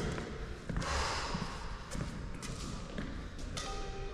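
Badminton rally: rackets striking the shuttlecock a few times, with players' footsteps on the court.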